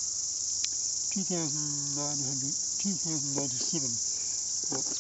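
Steady high-pitched insect chorus, an unbroken shrill drone. A man's low voice sounds briefly twice in the middle.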